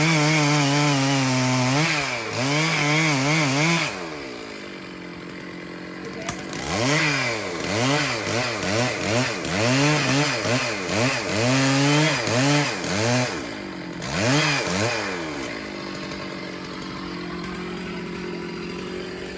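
Chainsaw engine held at high revs, then dropping to idle about four seconds in. It is then revved in a run of quick throttle blips, about two a second, before settling back to a steady idle near the end.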